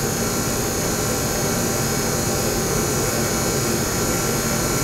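Vacuum pump of a Denton Vacuum sputter coater running steadily as it pumps the chamber down, an even mechanical whir with a faint high whine on top.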